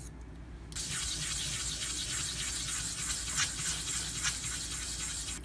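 Quick back-and-forth scrubbing of a small block on the wet surface of a bonded diamond sharpening stone, starting about a second in and breaking off near the end, clearing the buildup from the loaded stone.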